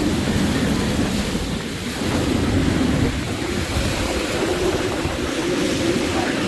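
Hurricane-force wind in Hurricane Ian's eyewall, blowing steadily loud with gusts the chaser puts at easily over 100 mph, and wind noise on the microphone.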